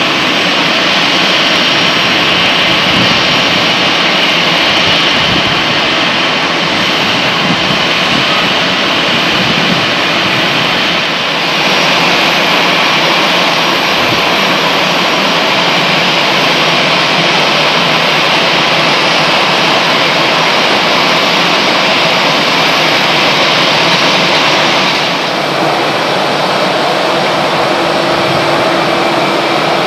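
Jet airliner engines running at low power on the apron, a loud steady rush with a high whine. The sound shifts abruptly about eleven seconds in and again near the end.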